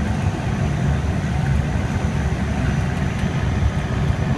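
Steady engine and propeller noise of a Pilatus PC-6 Porter heard from inside its cabin, a constant deep drone with no change in pitch as the plane moves on the ground.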